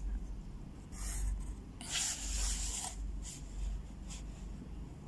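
Pencil scratching across paper as lines are drawn along a steel ruler: a short stroke about a second in, a longer stroke from about two to three seconds, then a few brief scrapes.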